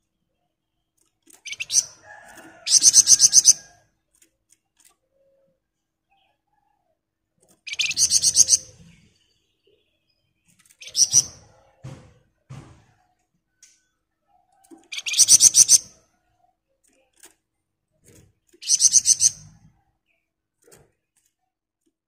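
Caged flamboyan songbird singing its rapid rattling 'ngebren' trill: about five short, loud, high, buzzy bursts a few seconds apart, the longest about a second.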